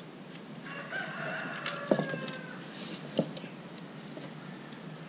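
A rooster crows once, a call of about two seconds that dips slightly in pitch. Two sharp clicks, louder than the crow, come from the wrench working the scooter's oil drain plug, about two and three seconds in.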